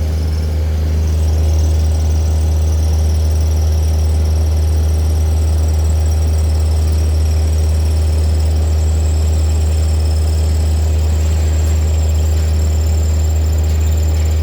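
An engine running steadily at a constant speed, with a strong low hum.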